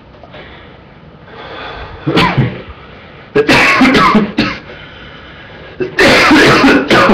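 A man coughing hard in three loud fits, the first about two seconds in, the longest two around three and a half and six seconds in, set off by a harsh cigarette.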